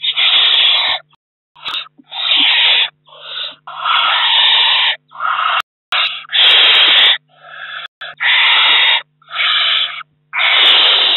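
Owl chicks giving harsh, rasping hissing calls, about a dozen in quick succession, some overlapping as several chicks call at once: their begging calls.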